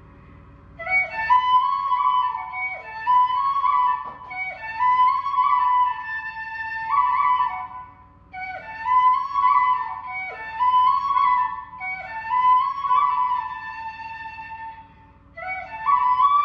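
Background music: a solo melody on a wind instrument, played in short phrases with slides between notes, pausing briefly about eight seconds in and again near the end.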